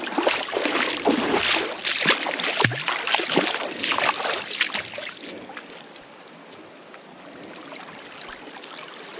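Bare feet wading through shallow seawater over rocks: a run of sloshing splashes, step after step, for about five seconds. After that the splashing stops and only a quieter, even wash of water remains.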